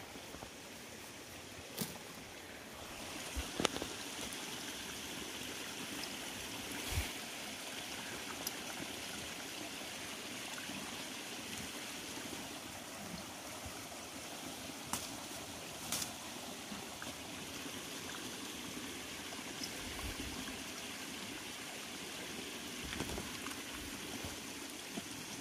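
Small creek running steadily, with a few scattered clicks and knocks.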